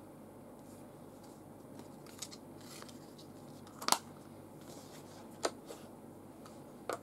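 Clear plastic lens-filter case being handled, giving light rustling and several sharp plastic clicks. The loudest click comes about four seconds in, and others follow about a second and a half apart.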